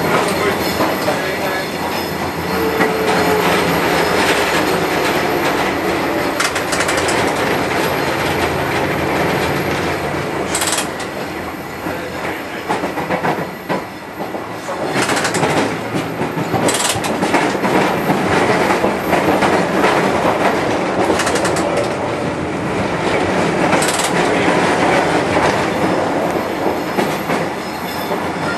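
Preserved Rotterdam tram 522 with its trailer running on street track, heard from inside: a steady rumble and rattle of the car body and wheels on the rails. A few sharp clicks sound along the way.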